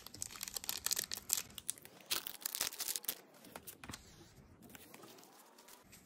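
Foil wrapper of a Pokémon trading card booster pack being torn open and crinkled by hand: a dense run of crackling for about the first three seconds, then quieter, sparser rustling.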